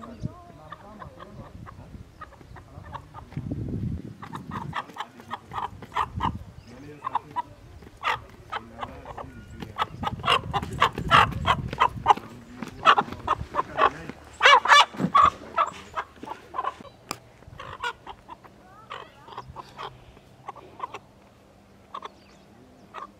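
Rooster clucking and squawking in short repeated calls while being carried by hand, the calls coming thickest and loudest in the middle of the stretch.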